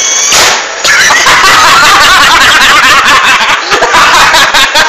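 Loud, distorted laughter that breaks into short rhythmic bursts near the end.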